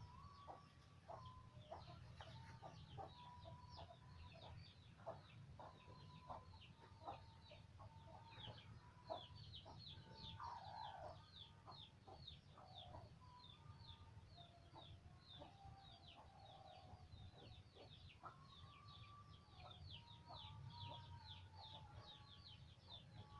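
Faint farmyard bird calls: many quick high chirps, several a second, mixed with lower clucking calls, over a steady low hum.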